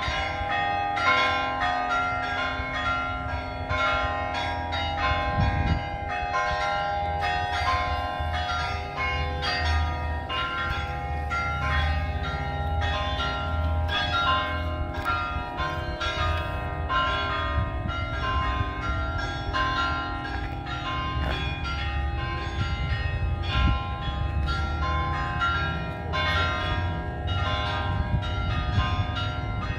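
Church bells pealing for Easter, many bells struck in quick succession, their tones overlapping and ringing on without a break.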